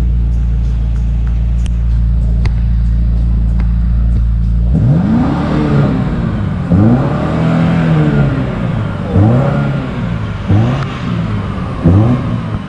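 BMW X6 M60i's 4.4-litre twin-turbo V8 exhaust, first a steady low drone, then about five seconds in a series of free-rev blips, each rising and falling in pitch.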